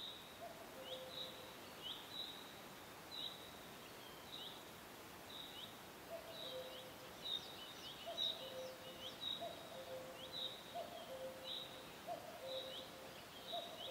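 Faint outdoor ambience with birds calling: short high chirps about once a second, joined about six seconds in by a lower two-note call, the second note lower, repeating roughly every second and a half.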